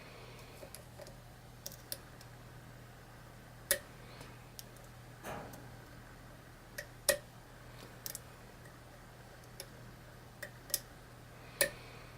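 Small metal clicks and ticks at irregular intervals from a thin lock pick and tension wrench working the pins inside a challenge lock's keyway during single-pin picking.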